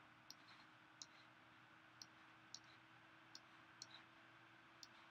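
Faint, irregular clicks of a computer mouse, about eight of them, over a faint steady hum.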